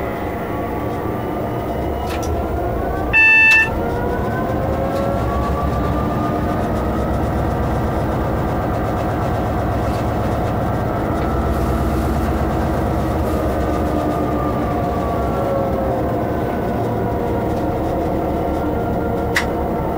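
Class 66 diesel-electric locomotive's two-stroke V12 engine and traction drive running, heard from inside the cab. Its pitched whine rises over the first few seconds, holds, then falls near the end. About three seconds in, a loud single-pitched horn-like tone sounds once for about half a second.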